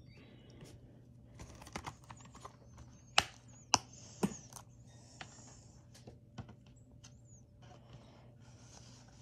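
Plastic Blu-ray case being handled and snapped shut: scattered light clicks and rattles, with three sharp snaps about three seconds in, over a faint steady hum.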